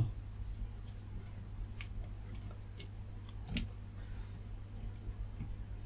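Faint scattered clicks of test-probe tips being pressed and shifted on solder joints of a circuit board, the loudest about three and a half seconds in, over a low steady hum.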